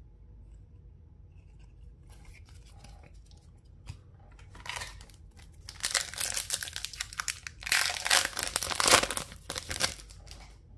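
A 2021-22 Upper Deck Extended Series hockey card pack being torn open, its wrapper tearing and crinkling. Faint rustling begins about two seconds in, then comes loud tearing and crinkling in two long stretches from about six seconds until shortly before the end.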